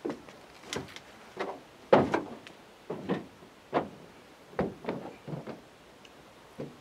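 Train wheels on the rails just out of sight: a run of uneven clunks and short squeaks, about one every second, the loudest about two seconds in and fainter toward the end.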